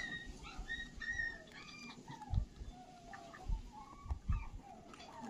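A series of short, high animal calls in the first two seconds, followed by lower, shorter calls, with a few low thumps mixed in.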